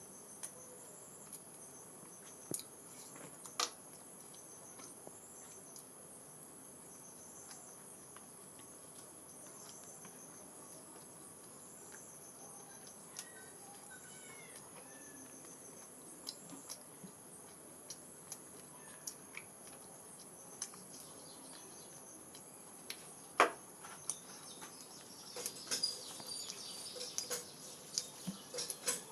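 Steady high-pitched insect chirring throughout, with scattered soft clicks and smacks of eating: a sharper click about 23 seconds in and a busier cluster near the end.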